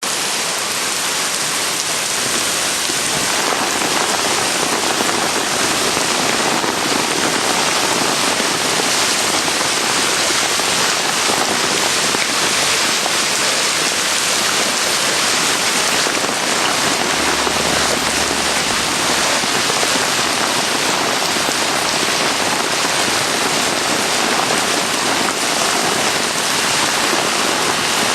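Torrential rain pouring down in a steady, loud, dense hiss, the heavy downpour of a flash-flooding storm.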